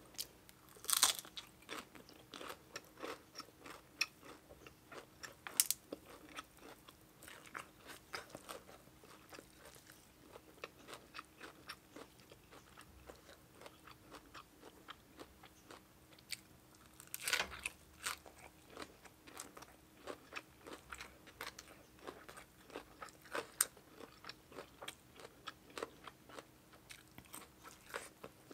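Close-miked eating sounds: chewing and crunching fresh greens and spicy papaya salad, a steady run of small wet clicks with a few sharper crunches, the loudest about a second in and around seventeen seconds in.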